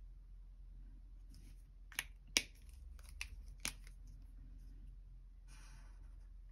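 Faint scratch of a felt-tip highlighter stroked across paper, with a few sharp clicks of pens being handled about two to four seconds in, the loudest at about two and a half seconds; another short highlighter stroke near the end.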